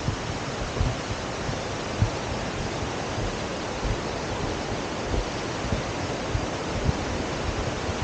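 Steady rushing hiss of a river flowing beside the trail, with irregular low bumps as the camera is carried along on foot.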